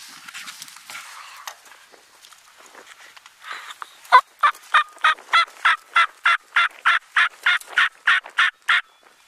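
Turkey call worked close by, running a long series of hen yelps: about seventeen short, evenly spaced notes, three to four a second, starting about four seconds in. Before it, light rustling of clothing and brush.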